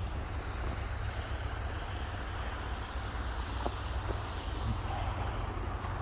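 A box truck driving past on a slushy road, its tyres running through wet snow, under a steady low rumble of wind on the microphone.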